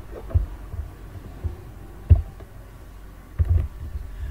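A few dull, low thumps a second or more apart, with a steady low hum between them.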